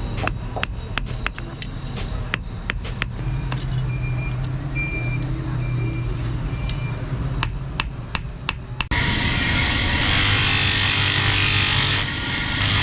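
Irregular hammer blows on steel over a steady low hum. About nine seconds in, this cuts abruptly to the loud, steady noise of a power tool grinding the metal.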